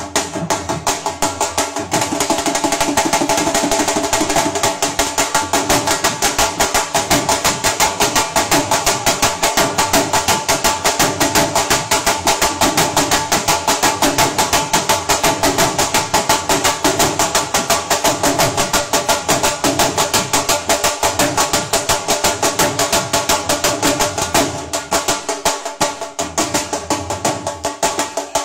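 Dhol drumming: fast, steady stick strokes on the double-headed barrel drum in a driving rhythm, the beat thinning briefly near the end.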